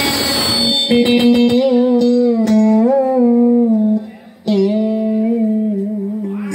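A woman singing a slow Vietnamese memorial song (hát tế) into a microphone, amplified through a loudspeaker, with long held, wavering notes over a plucked-string accompaniment. The sound breaks off briefly about four seconds in.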